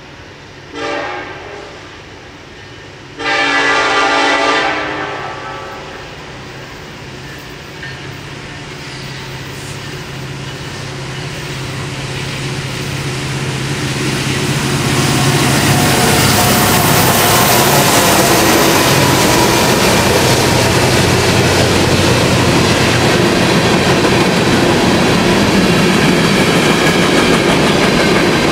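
Norfolk Southern diesel freight train, led by an SD70ACe, sounding its horn in a short blast and then a longer one as it approaches. Its engines rumble louder as the locomotives draw near and pass. From about halfway on, the freight cars roll past with a steady, loud clatter of wheels on the rails.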